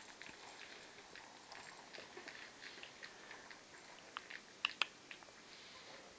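Faint clicks and ticks from three-week-old Lhasa Apso puppies moving about and mouthing a stitched toy ball, with a couple of sharper clicks about three-quarters of the way through.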